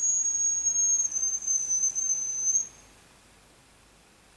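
One long, thin, very high whistle in the hazel grouse manner, held on one pitch for close to three seconds, then stopping abruptly; the decoy-style call used to bring in hazel grouse.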